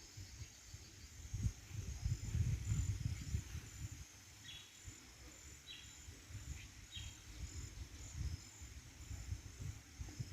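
Rural outdoor ambience: insects chirping in short repeated high notes, with a few brief bird calls in the middle, over an irregular low rumble of wind on the microphone.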